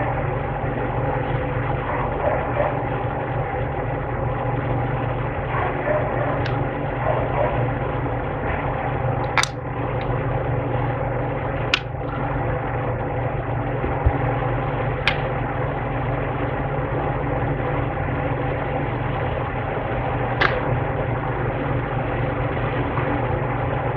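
A steady machine hum with a handful of short, sharp clicks several seconds apart, from small parts and tools being handled while an iPad battery is fitted.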